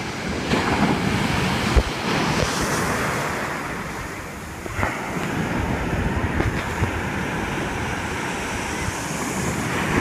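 Sea surf breaking and foamy water washing in at the shoreline, a continuous rushing noise, with a brief thump about two seconds in.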